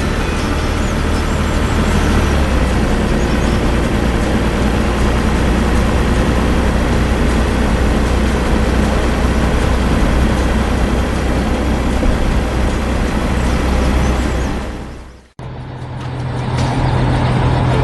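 Heavy vehicle engines running in a dense, steady mix with a low drone. About fifteen seconds in it fades out quickly, and a different steady engine hum starts straight after.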